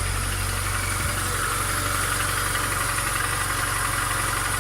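VAZ 2114 petrol engine idling steadily just after a cold start, running without knocking, its camshaft bearing beds freshly lapped.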